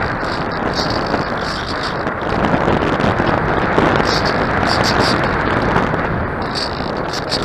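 Wind buffeting the microphone: a loud, irregular rumble and rush with short bursts of higher hiss.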